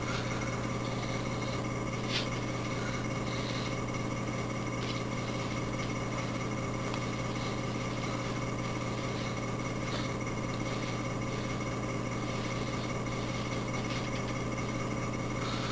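Steady low hum with faint hiss: background room tone, with one light click about two seconds in.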